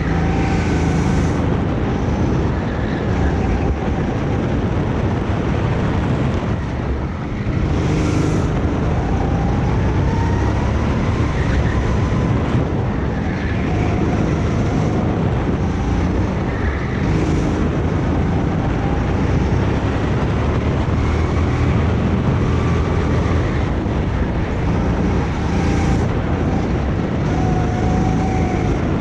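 Kart engine running through a lap, its pitch repeatedly rising and falling as it accelerates and lifts off, with a brief lull about seven seconds in.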